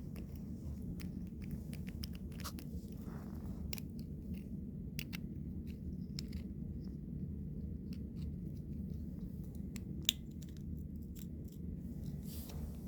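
Small clicks and light scraping of an elevator push button being handled as its cap is screwed back on, with one sharper click about ten seconds in, over a low steady hum.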